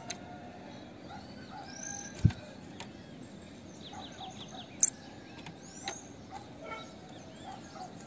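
Female bananaquit calling: thin high notes that slide up and down, and a quick run of short ticking notes about four seconds in. A dull thump about two seconds in and a sharp click near five seconds in are the loudest sounds.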